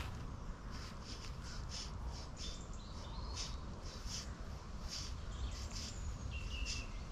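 Small birds chirping in short, irregular high notes, with a few brief whistled calls near the end, over a steady low rumble.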